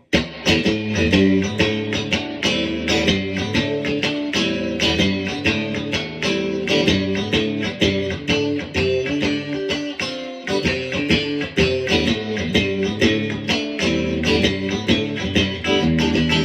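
PRS SE Swamp Ash Special electric guitar played through an amp on the bridge humbucker with the middle pickup, picking a run of single notes and chords.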